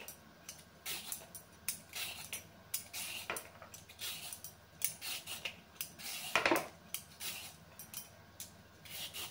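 Vegetable peeler scraping strips off a raw carrot in short, repeated strokes, with one louder clack about six seconds in.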